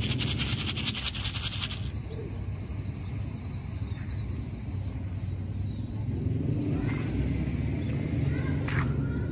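Low rumble of road traffic, with a vehicle drawing nearer and louder over the last few seconds. A high, rapidly pulsing buzz sounds for the first two seconds or so.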